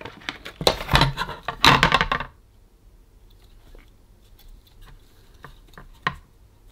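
Handling of a portable speaker's plastic enclosure and circuit board on a silicone work mat: a run of knocks and rubbing for about the first two seconds, then faint small clicks, with one sharper click near the end.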